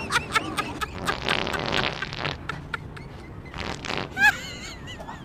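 Fart noises: a quick run of sputtering pops, then a longer, rippling fart about a second in, and a shorter one near four seconds.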